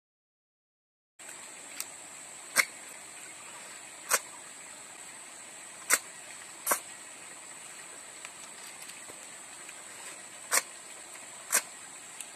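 Eating sounds: about nine short, sharp sucking clicks at irregular intervals as cooked snails are sucked out of their shells by mouth, over a steady high hiss. The sound cuts in about a second in, after dead silence.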